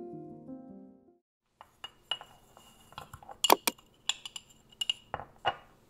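Background music fading out in the first second. Then a run of light, sharp glass clinks and taps, loudest about halfway through, as a glass jar of instant espresso is handled over a small drinking glass and the powder is tipped in.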